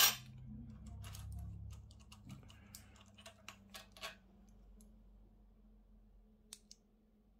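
Metal parts of a Shimano Alfine 11 internal gear hub clicking and clinking as the planetary gear unit is worked off the axle by hand: one sharp clack at the very start, then a scatter of light clicks.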